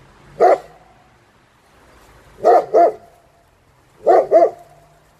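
German Shepherd barking on command: one bark, then two quick pairs of barks about a second and a half apart.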